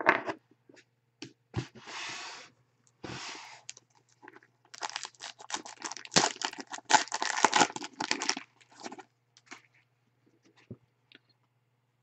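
Foil trading-card pack wrapper being torn and crinkled in the hands, in several short bursts and then a dense stretch of crinkling, followed by a few light clicks of cards being handled near the end.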